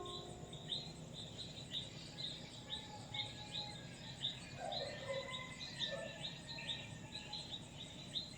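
Outdoor morning chirping: short, high, falling chirps repeated about three times a second, with a few lower bird calls about halfway through. The last ring of a church bell dies away right at the start.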